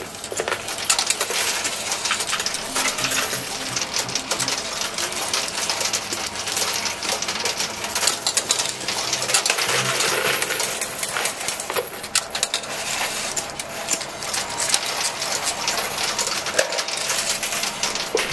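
Quarters dropping and clinking on the shelves of a coin pusher machine: a continuous jangle of many small metallic clicks as coins fall and are shoved along the pusher shelf.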